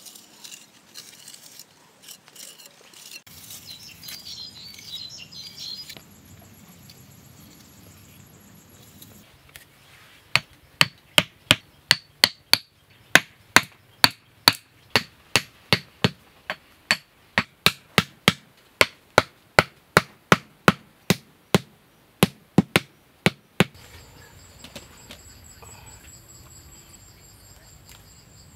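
A hammer driving small wooden stakes into the ground: a steady run of sharp knocks, two to three a second, starting about ten seconds in and stopping a few seconds before the end.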